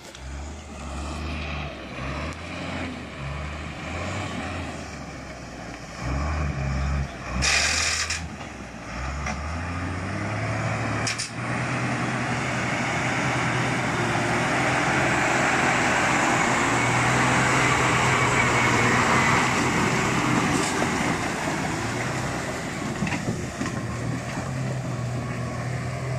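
Dodge stake-bed truck's engine running under load as the truck drives through deep mud, getting louder as it comes close. A short, loud hiss about seven and a half seconds in.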